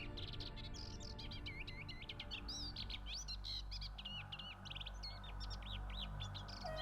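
Ambient electronic music: a dense chorus of quick chirping birdsong over a low, steady drone.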